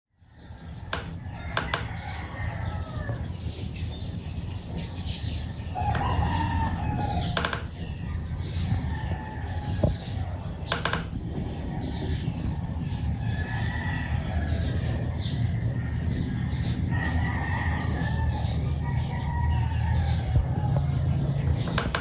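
Roosters crowing several times in the background over a steady low rumble, with a faint high-pitched pulsing tone running under it all and a few sharp clicks.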